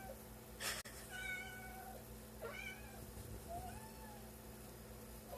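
Long-haired grey kitten meowing faintly: one longer meow, two shorter ones and another just starting at the end. A short burst of hiss-like noise comes just before the first meow.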